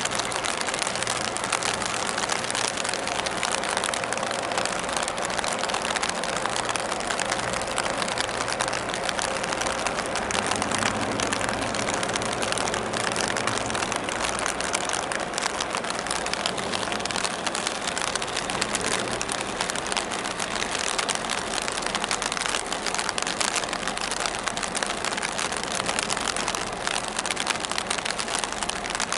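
Steady outdoor harbour noise: a constant hiss with a faint low engine hum beneath it.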